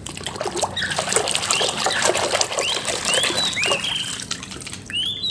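Water splashing and trickling as a muddy toy vehicle is washed, with small clicks and a few short high squeaks.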